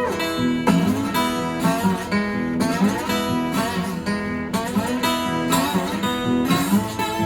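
Johnson dreadnought acoustic guitar in open E tuning, strummed in a steady rhythm of about two strums a second, with the chords ringing on.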